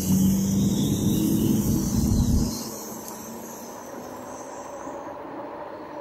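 A trolley-style bus drives past close by, its engine running with a steady low hum. The sound drops away sharply about two and a half seconds in, leaving softer steady traffic noise.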